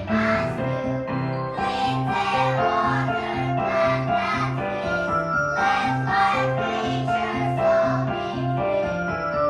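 Music with a steady, regularly repeating bass line about two notes a second under a melody.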